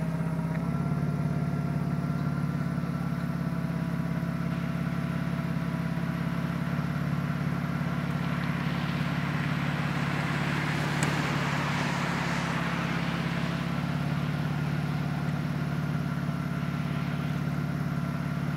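BMW E36 convertible's engine idling steadily while its power soft top raises and closes. A steady higher whine from the top mechanism runs over the idle. Around the middle there is a swell of rustling and one sharp click as the top unfolds.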